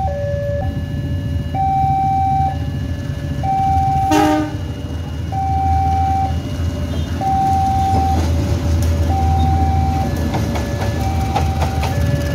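Level-crossing warning alarm sounding a repeating two-tone chime, a higher and a lower tone alternating just under a second each, over the low rumble of an approaching diesel passenger train. About four seconds in the locomotive gives one short blast of its horn, the loudest moment.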